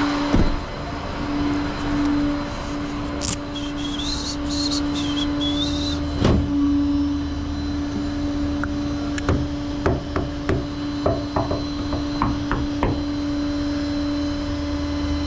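A steady hum with a heavy thud near the start and another about six seconds in, then a run of sharp knocks and clicks in the second half.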